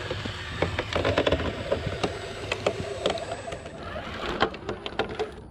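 Radio-controlled rock crawler's electric motor and geared drivetrain whining as it climbs, with many short clicks and knocks from the tyres and chassis on the rock.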